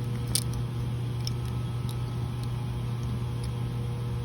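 Steady low hum with a faint higher tone running through it, broken by a few faint light clicks of loose metal pieces from a shattered transmission planetary gear being handled.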